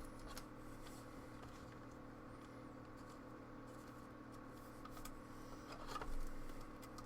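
Steady low electrical hum of a quiet room, with faint rustles and soft clicks of trading cards being handled and slid through a pack, a little louder about six seconds in.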